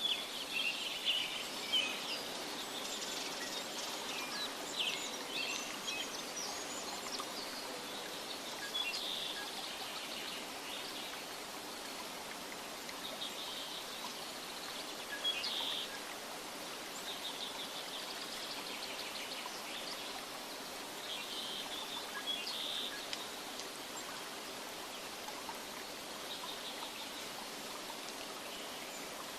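Nature ambience: a steady rush of water, with small birds chirping now and then, most often in the first half.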